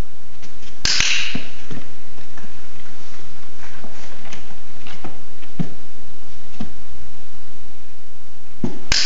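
Dog-training clicker clicking twice, about a second in and near the end, each click marking a behaviour with the puppy's feet on the platform that earns a treat. Between the clicks come light taps and knocks, as of puppy paws on the cardboard box.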